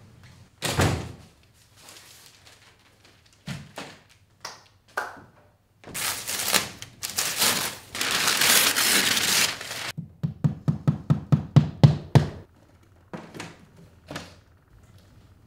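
Handling sounds in a small room: a door thuds shut about a second in, then cloth rustles as it is crumpled and handled, followed by a quick run of about a dozen low thumps, roughly five a second, with scattered light knocks around them.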